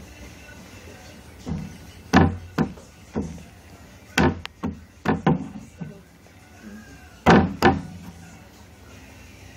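About ten sharp knocks and bangs at irregular spacing, several in quick pairs, the loudest about two seconds in and again about seven seconds in.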